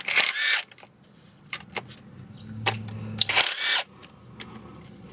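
Metal hand tools clicking and clinking: a ratchet and socket working loose bolts on an engine's timing cover. There are two short bursts of rattling, near the start and about three and a half seconds in, with scattered clicks between.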